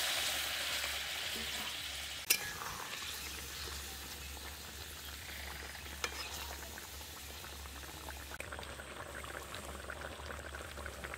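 Fish curry sizzling in a karai of hot oil tempered with nigella seeds: a loud hiss dies down over the first couple of seconds into a steady bubbling boil. Two sharp knocks come, one about two seconds in and one about six seconds in.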